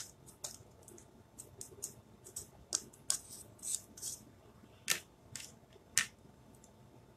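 Faint, irregular light clicks and taps with soft rustles from small plastic craft tools and a stencil being handled on the table, the sharpest clicks about three seconds in, near five seconds and near six seconds.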